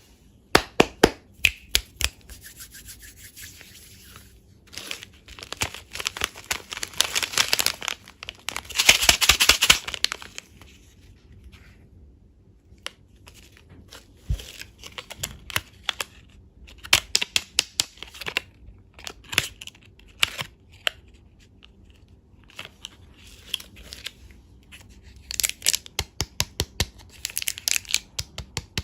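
Candy wrappers being crinkled and torn open by hand: bursts of sharp crackling and rustling in several spells, with quieter pauses between.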